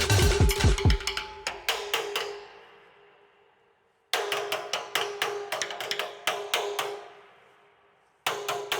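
Tap shoes clicking quick, sharp taps over music. The sound fades out twice and starts again abruptly, about four seconds in and near the end.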